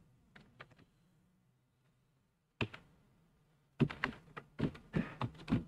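Keystrokes on a computer keyboard as code is typed: a few faint taps, a pause, one sharper keystroke, then a quicker run of keystrokes in the second half.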